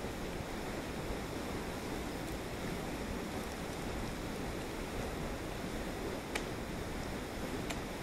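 Steady rushing noise throughout, with two sharp ticks near the end, about a second apart: an ice axe striking the ice of a frozen waterfall.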